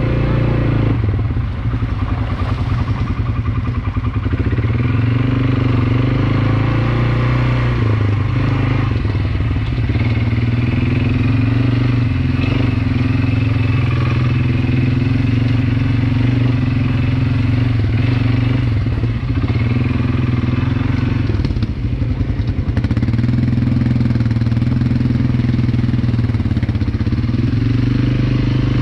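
ATV engine running while riding, its pitch shifting up and down with the throttle.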